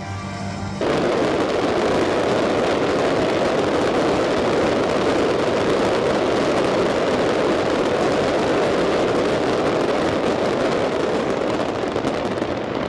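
A fireworks display heard live: a dense, continuous barrage of crackles and bangs merging into one steady din, starting about a second in as music cuts off.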